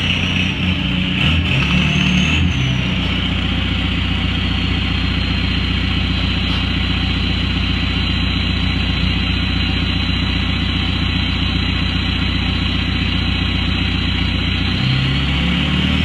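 Straight-piped VW Mk4 TDI 1.9-litre four-cylinder turbodiesel blipped briefly, then idling while the turbo's whistle falls slowly as it spools down. The engine is revved again near the end.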